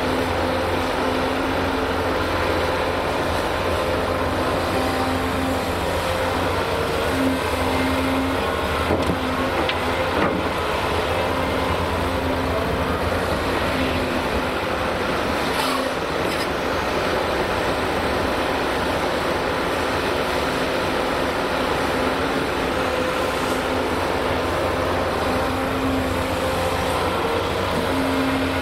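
Volvo EC480D L crawler excavator's diesel engine running steadily under working load as it digs and swings a bucket of soil. A humming tone comes and goes over it, and there are a few sharp knocks around the middle.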